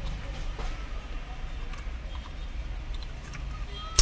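Small handling noises as a plastic electrical connector is fitted, ending in one sharp snap near the end, over a steady low background rumble.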